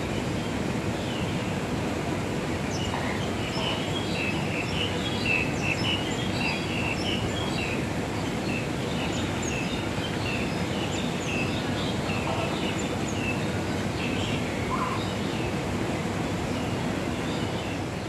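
Many short, high bird calls, overlapping thickly for most of the first two-thirds and thinning out after that, over a steady background rumble.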